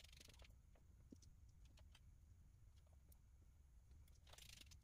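Near silence: faint low room hum, with a few faint small clicks and two brief soft hissy rustles, one at the start and one near the end.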